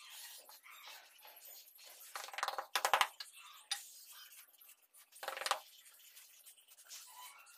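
Metal hand tools, a straightedge and a shovel, working wet cement mortar on a floor. There are a few short scrapes and clinks, the loudest about two to three seconds in and another just after five seconds.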